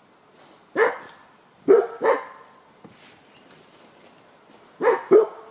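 A dog barking: three short barks in the first couple of seconds, then two more near the end.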